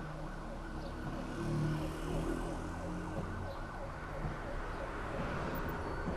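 Urban street noise: a steady traffic rumble, with a low engine hum that swells briefly about a second and a half in.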